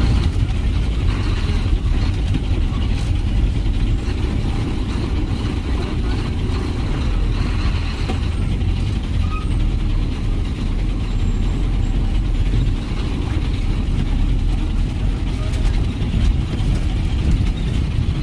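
Diesel bus engine running with a steady low rumble and road noise, heard from inside the bus cabin as it drives slowly over a rough, unpaved road.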